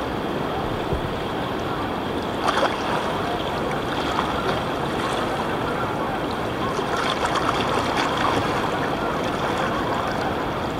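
Steady rush of river water along the hull of a moving kayak, with a few small splashes.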